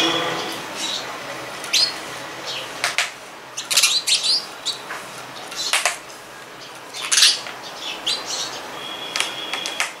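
House sparrows chirping: short, separate chirps at irregular intervals, with a quicker run of them about four seconds in.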